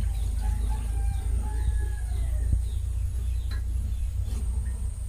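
A rooster crowing in the background, one long call lasting about two seconds, over a steady low hum. Near the end come a couple of light clinks of steel dishes being handled.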